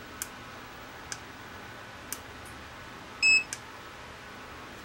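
Mustool U0 multimeter giving one short, high beep about three seconds in as it powers on, after a few faint clicks.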